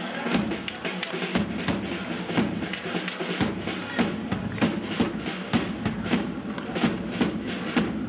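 Turkish folk dance music played for street dancing: a melody over a steady drum beat, with a sharp drum stroke about every half second to second.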